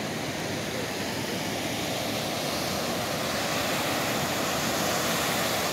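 Steady rushing and splashing of floodwater churned up by cars driving through a flooded street, slowly growing louder.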